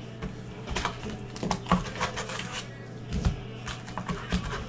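Cardboard hobby box being opened and foil trading-card packs lifted out and handled: a run of irregular clicks, taps and crinkles over a steady low hum.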